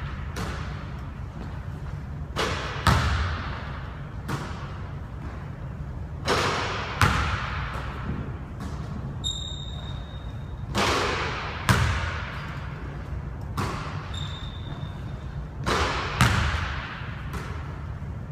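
A basketball thudding and bouncing on a hardwood gym court, with a dozen or so separate impacts, each echoing round the large hall. Two short, high sneaker squeaks come in the middle.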